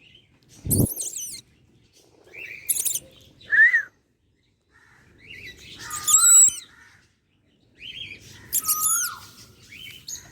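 Pet parrot-family birds (cockatiels, lovebirds) calling in several short, high, shrill chirps a few seconds apart. Brief lower whistled notes fall in between, and a dull thump comes about a second in.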